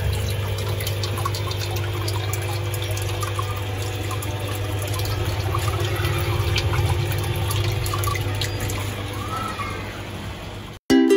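Small paludarium waterfall, pump-fed tank water splashing and trickling down over rocks back into the water, over a steady low hum. Just before the end it cuts off suddenly and ukulele music begins.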